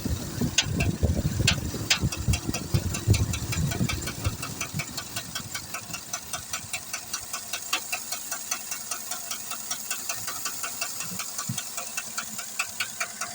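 2008 Chevrolet Tahoe's 5.3 L V8 running with a regular ticking, about three ticks a second: the engine noise being checked. For the first four seconds a heavy low rumble lies over it.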